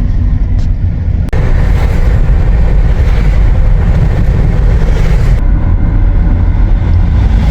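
Car on the move: a steady, loud low rumble of road and engine noise, with a brighter rushing hiss joining about a second in and dropping away after about five seconds.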